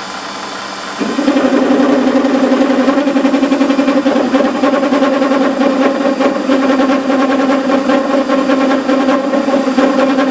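Lathe running with a 12 mm end mill. About a second in, the cutter bites into the work and cuts with a loud, steady pitched ringing that has a fast flutter.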